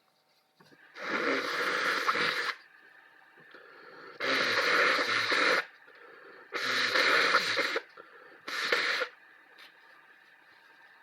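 Four long, rasping, wheezy bursts of breath from an ill person's chest and throat, the last one shorter.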